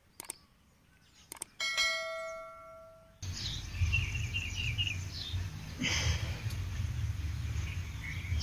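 Subscribe-button sound effect: two mouse clicks, then a bell ding that rings and fades over about a second and a half. About three seconds in the sound cuts to outdoor background: a steady low rumble with birds chirping.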